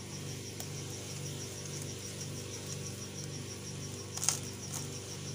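A cricket chirping steadily in a high, rapid pulse over a low hum. About four seconds in comes one short crunch as the knife cuts through the baked pizza crust.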